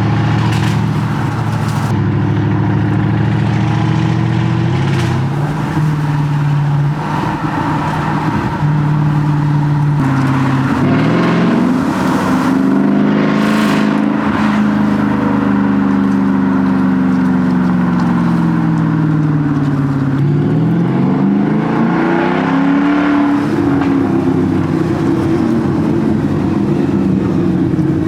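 Exhaust of a 2006 Porsche Cayenne S's V8 running with the muffler removed, the engine note changing with revs. It holds steady at first and steps up about five seconds in. From about ten seconds it climbs, then eases slowly back down, and it rises again a little after twenty seconds before settling.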